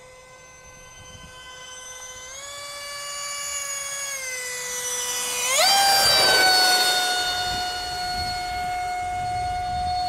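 The twin 70 mm electric ducted fans of a model Boeing 737 MAX 8 whine steadily on approach. A little past halfway the whine rises sharply in pitch and loudness as the throttle is opened to abort the landing and go around. A rush of air swells loudest as the plane passes close, then eases as it climbs away.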